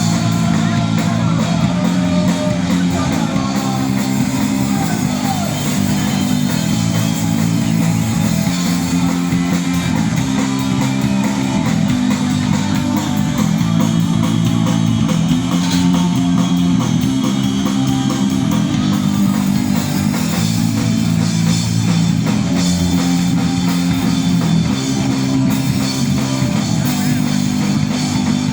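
Rock music with guitar and drum kit, playing steadily throughout.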